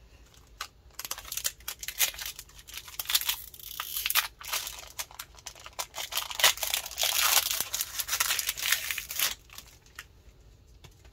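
A Pokémon Brilliant Stars booster pack's foil wrapper being crinkled and torn open: a dense run of crackles from about a second in until near the end.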